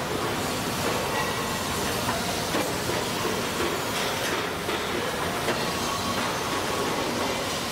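Factory production-line machinery running: a steady mechanical din with a hiss and a faint hum, and a few light metallic clanks.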